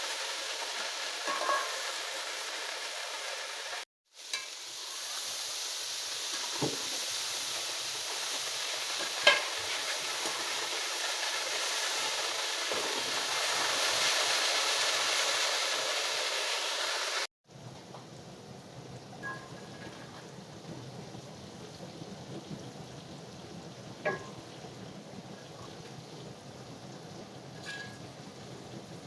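Okra frying in hot oil, sizzling steadily, with a few sharp clicks of a spoon or spatula stirring against the pan. The sizzle cuts off abruptly twice and is much quieter in the last part.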